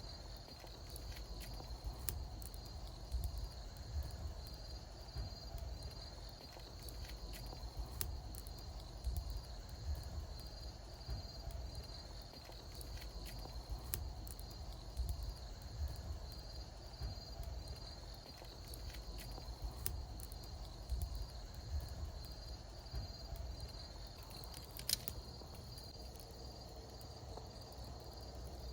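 Wood bonfire burning with a low flutter and scattered sharp crackles and pops, the loudest pop near the end. Insects chirp throughout in a steady, high, pulsing trill.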